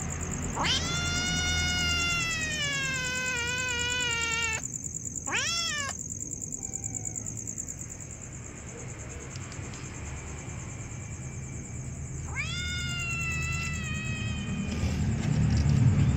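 Cats meowing: one long drawn-out meow that slides slightly down in pitch, a short rising call about five seconds in, and another meow about twelve seconds in.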